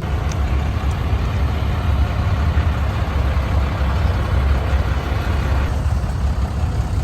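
A car on the move: a steady low engine and road rumble with a hiss of wind and road noise over it. The hiss eases about six seconds in.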